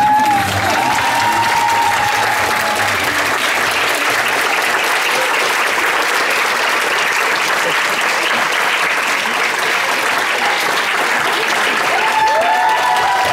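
A crowd applauding steadily as the dance music ends, with a few drawn-out high cheers about the start and again near the end.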